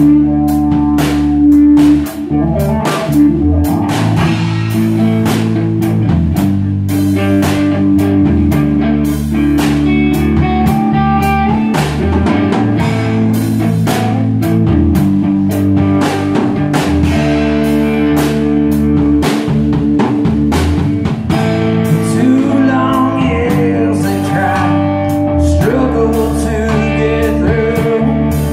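A band playing blues-rock: guitar, bass and drum kit, with a steady drum beat throughout and wavering lead lines in the second half.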